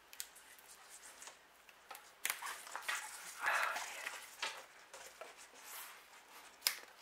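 Rustling and crackling of orchid bark mix and roots as a Cymbidium's root ball is picked over by hand, with a few sharp clicks scattered through it.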